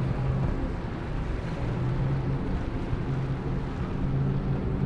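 Mercury outboard motor on a center-console boat running at speed through choppy water: a steady engine hum over a wash of water and wind noise.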